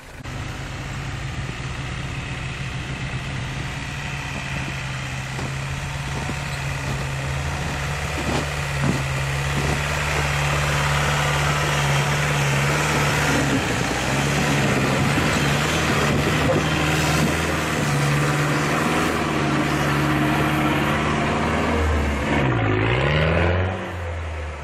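Off-road 4x4's engine running hard at near-steady revs, growing louder over the first several seconds. Near the end the revs dip and pick up again, then the sound drops away.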